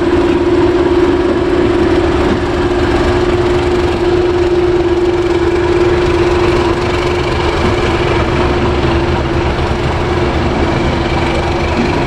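Class 31 diesel-electric locomotive moving off at low speed, its engine running steadily with a constant mid-pitched drone over a low rumble. The sound drops slightly after about seven seconds as it draws away.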